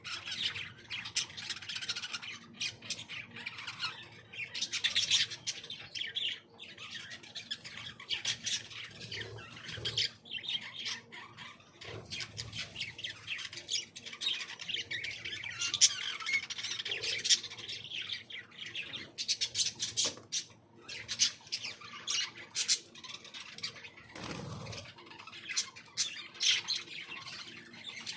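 A flock of small aviary birds squawking and chattering, with many short calls overlapping without a break and now and then a sharper, louder squawk.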